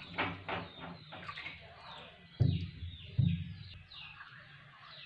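Birds chirping repeatedly in short, falling calls, with two dull knocks about two and a half and three seconds in.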